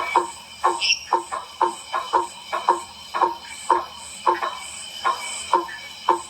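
Blacksmith treefrogs (Boana faber) calling: a run of hollow, metallic knocks like a hammer striking, about two a second, over a steady high drone.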